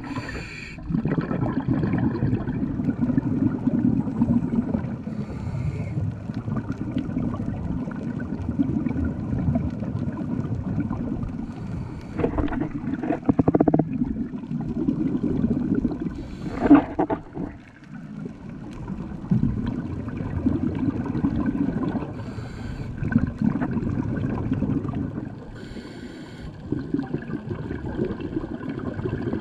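Scuba diver breathing through a regulator underwater: a low rumble of exhaled bubbles, broken every five seconds or so by a short hiss.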